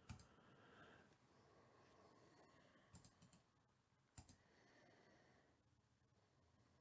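A few faint computer mouse clicks over near silence, the clearest about three and about four seconds in.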